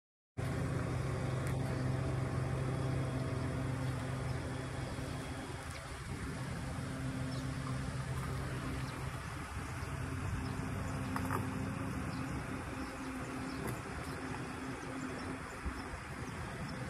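Pickup truck engine running steadily at low speed as it reverses a boat trailer down a launch ramp, a low, even-pitched engine note that starts abruptly about half a second in.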